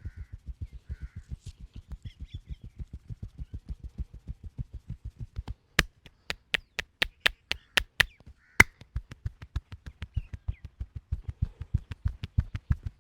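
Massage hand percussion: a fast, even patter of soft thumps, about five a second, from hands tapping on the body. From about six seconds in to about eight and a half, sharp, louder claps come about four a second.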